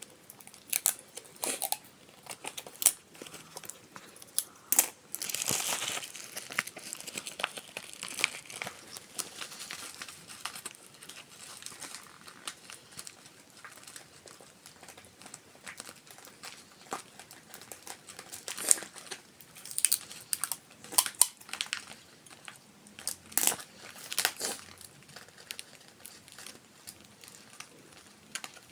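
Paper and plastic bags crinkling and rustling as a homemade paper squishy stuffed with plastic bags is handled and closed up. Irregular crackling runs throughout, with sharp snaps and tearing scattered through it and a louder cluster of snaps in the second half.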